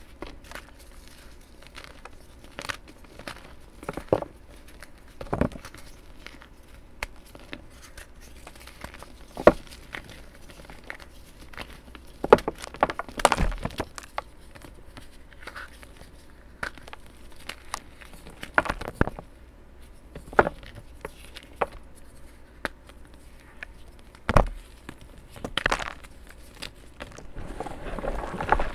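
Hands crushing chunks of coloured chalk into powder: irregular crisp cracks and crunches as pieces snap, over a soft steady crumbling rustle. The loudest cracks come about nine seconds in, around twelve to thirteen seconds in, and again around twenty-four seconds in, and the rustling thickens near the end.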